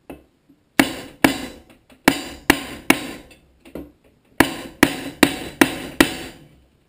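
Hammer striking a wooden board laid over a Tecumseh HSK70 engine block, tapping a new oil seal home: about ten sharp knocks in two runs with a short pause between.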